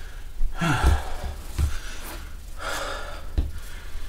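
A man panting hard right after a minute of push-ups: two deep, gasping breaths about two seconds apart.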